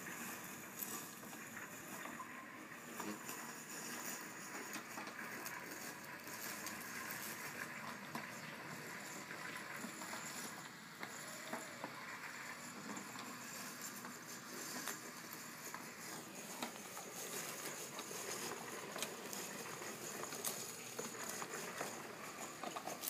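DIY robot lawn mower driving over grass: a faint, even rustling noise dotted with small ticks and crackles.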